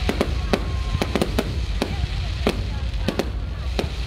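Fireworks display: about a dozen sharp bangs and cracks at irregular intervals over a steady low rumble.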